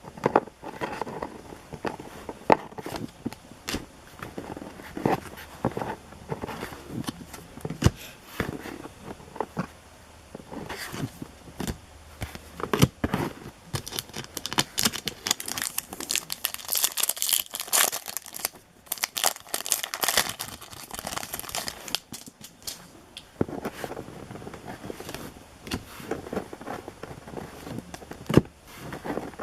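Baseball card pack wrappers crinkling and tearing, mixed with many small clicks and taps of cards being handled. The crinkling is densest in a stretch around the middle.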